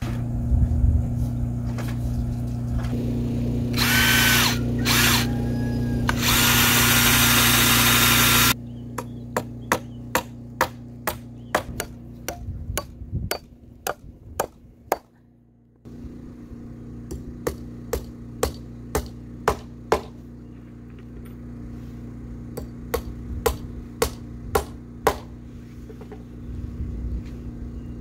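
A power saw runs and cuts through pine boards for several seconds and then stops abruptly. It is followed by runs of sharp hammer blows, about two a second, nailing lumber stringers together, over a steady low hum.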